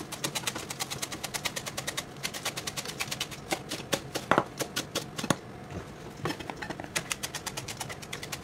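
Chef's knife rapidly chopping fresh coriander on a plastic cutting board: quick, even knife taps about six a second, with a brief pause about two-thirds of the way through.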